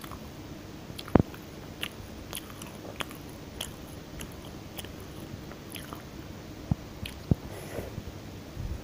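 Close-miked eating: chewing and biting with scattered crisp clicks and crunches, and a few sharper snaps about a second in and near the end.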